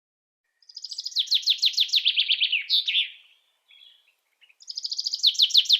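A songbird singing a fast, high trill of about a dozen quick notes that slide downward, ending in a couple of separate notes; the phrase comes twice with a short pause between.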